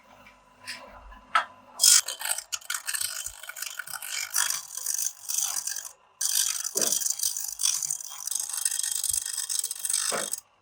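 Dense metallic rattling and scraping from metalworking. It starts after a few sharp clicks about two seconds in, breaks off briefly near the middle, and cuts off just before the end.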